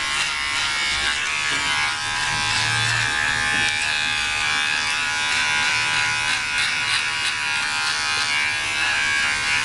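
Electric shaver buzzing steadily as it is run over the beard along the jaw and neck.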